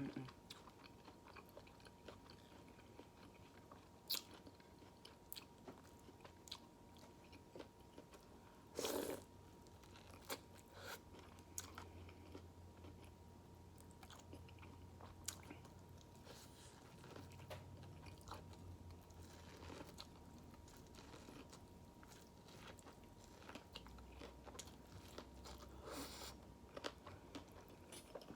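A person chewing and biting food close to the microphone, with scattered soft crunches and mouth clicks and a few louder bites.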